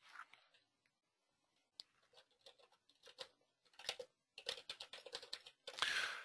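Computer keyboard typing, faint: a few scattered keystrokes, then a quick run of keys in the second half as a short phrase is typed.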